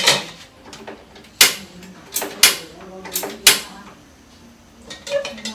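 A metal spatula scraping and knocking against a metal wok on a gas stove, several sharp strokes over the first three and a half seconds, then a quick run of small clicks near the end.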